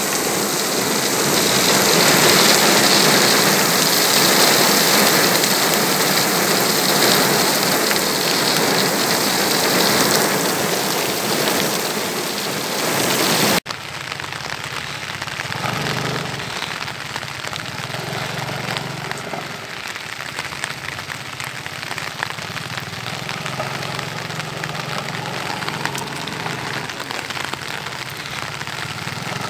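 Heavy rain pouring onto paving: a dense, steady hiss. After a sudden cut about 14 seconds in, the rain is quieter, and a Yamaha X-Max 250 scooter's engine runs faintly underneath it.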